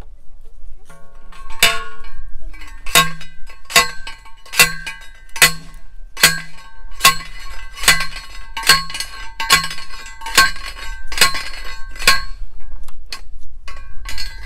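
A manual post driver pounding a steel T-post into the ground: about a dozen ringing metal clangs, evenly spaced a little under a second apart, ending with a few lighter knocks.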